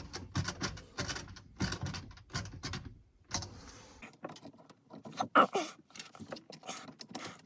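Clicks, rattles and knocks of hand tools and metal parts being worked under a kitchen sink as the dishwasher drain hose clamp on a garbage disposal is tightened. There is one louder knock about five seconds in, followed by a short falling squeak.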